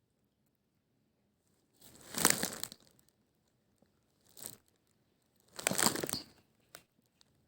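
Three bursts of rustling and crinkling: two of about a second each, with a short one between them.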